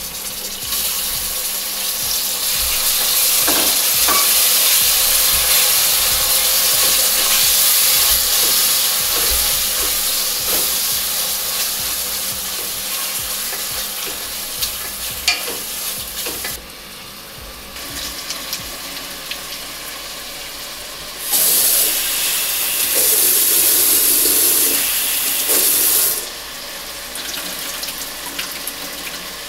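Food sizzling in hot oil in a frying pan. The sizzle starts abruptly, fades about halfway through, and surges loudly again for several seconds near the end, with scattered clicks of a utensil stirring against the pan.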